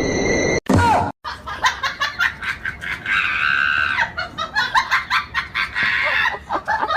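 A person laughing hard in quick, rapid bursts, breaking into a high-pitched scream-like shriek about three seconds in.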